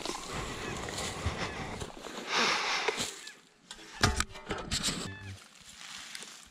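Garden shovel digging into dry grass, mulch and soil: the blade scrapes and crunches as it is pushed in, a louder rush of earth and straw as a clod is levered up about two and a half seconds in, and a couple of sharp knocks about four seconds in.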